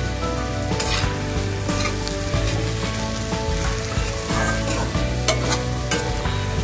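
Potato cubes sizzling in hot oil in a metal kadai as a metal spatula stirs them, scraping along the pan with a few sharp clinks; the spice powders are being mixed into the potatoes.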